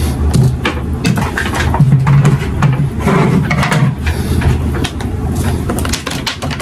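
Handling noise close to the microphone: irregular knocks, clicks and rubbing over a low rumble as the recording camera or phone is picked up and turned to point downward.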